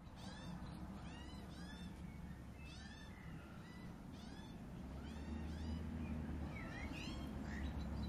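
Australian magpie giving a run of short, squawky calls, roughly two a second, each a quick sweep that falls in pitch. A low rumble underneath grows louder after about five seconds.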